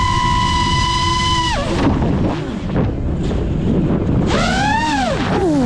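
FPV racing quadcopter's brushless motors whining at a steady pitch, then dropping off suddenly about a second and a half in as the throttle is cut for a dive, with wind rushing over the on-board microphone. Near the end the whine climbs again as the throttle is punched, then falls away.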